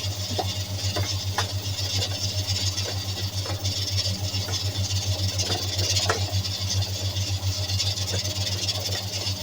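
A steady low mechanical hum, like a motor or fan running, with a few faint light clicks and taps.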